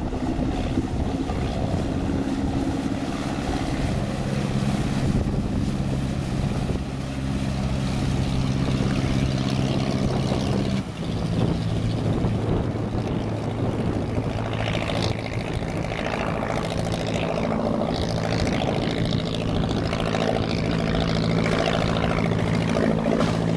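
Small motorboat's engine running steadily under way. The engine note dips briefly about eleven seconds in, then carries on at a slightly lower pitch.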